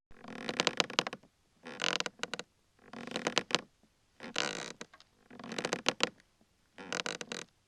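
Rocking chair creaking as it rocks back and forth: six creaks in a steady rhythm, a little over a second apart.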